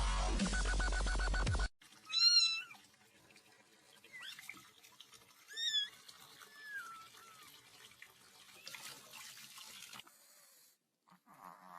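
Electronic dance music cuts off under two seconds in. Then a domestic cat meows: two loud meows a few seconds apart, with softer calls between them.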